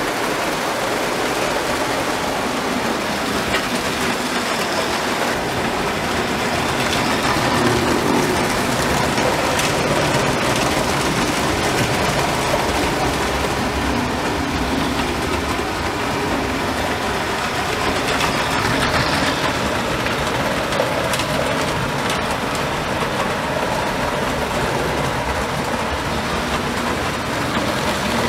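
Model train running along the layout's track: a steady rolling rumble of wheels on rails that holds even throughout.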